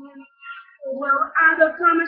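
Boys singing a pop song unaccompanied: a held note ends just after the start, a brief pause follows, and the singing picks up again about a second in.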